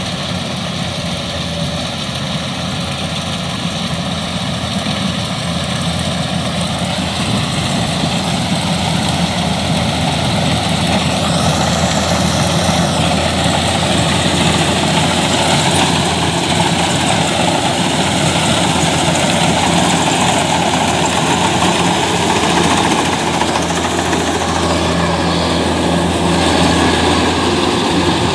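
Kubota DC-105X combine harvester running steadily while cutting and threshing rice, a continuous diesel engine drone with mechanical clatter, getting louder about a third of the way in as it comes closer.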